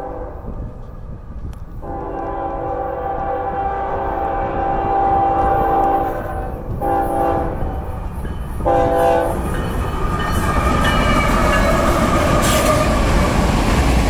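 Union Pacific freight diesel locomotive's multi-chime air horn: one long blast about two seconds in, then two short blasts. From about ten seconds in, the locomotives and freight cars pass close by with a loud rolling noise, and there is wind rumble on the microphone.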